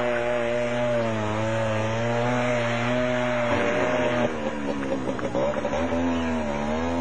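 Two-stroke single-cylinder engine of a 150cc MZ motorcycle running at held revs, the pitch wavering slightly; after about four seconds the revs dip and rise more.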